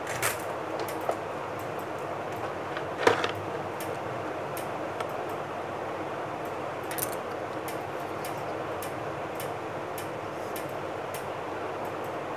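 Steady fan noise in a small room, with faint regular ticking nearly twice a second and a light click about three seconds in.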